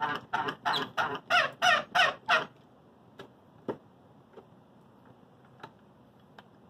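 Bench milling machine's quill feed squeaking as the cutter is lowered: a quick run of about eight squeaks, each sliding down in pitch. After that come a few light clicks.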